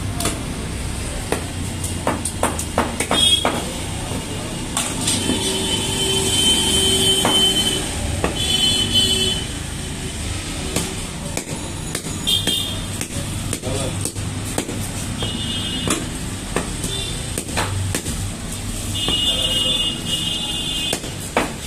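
Knife scraping and knocking against a whole fish and a wooden chopping block while the fish is scaled and cut, with irregular sharp taps, over busy market and street background noise.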